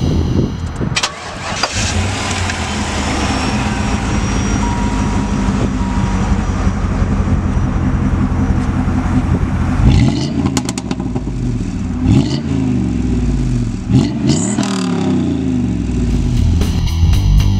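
A 1995 Pontiac Firebird Firehawk's 350 cubic-inch LT1 V8 starts about a second in and idles steadily through its exhaust. In the second half it is revved several times, each rev rising and falling in pitch.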